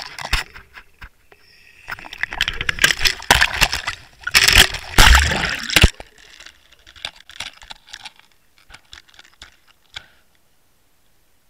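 Waterwolf underwater camera in its sealed housing on the fishing line, cast out and plunging into the sea: bursts of rushing, sloshing water noise for about six seconds, then fainter bubbling ticks as it sinks, going quiet about ten seconds in.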